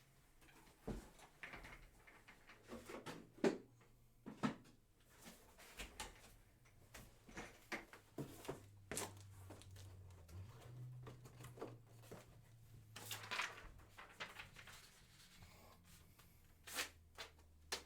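Scattered light taps, clicks and rustles of cards and packaging being handled on a table, over a faint low hum.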